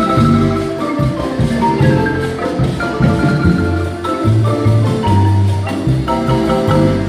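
Guatemalan marimba ensemble playing a slow bolero: the bass marimba's low notes under tenor and melody parts, whose held notes are struck in quick repeated strokes.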